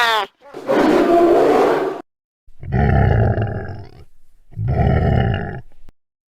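Horror-style screams from a woman: a pitched scream dying away right at the start, then three harsh, rasping screams of about a second and a half each, the last two deep and growling.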